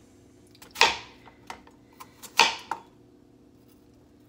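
A knife slicing through an onion and striking a plastic cutting board: two sharp chops about a second and a half apart, with a few light ticks between.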